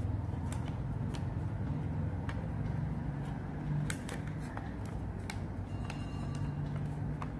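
A sheet of origami paper being handled and folded, giving a few short crackles and ticks, over a steady low rumble in the background.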